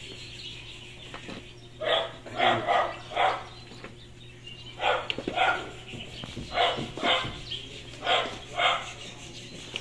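A dog barking repeatedly, mostly two barks at a time, over a steady low hum.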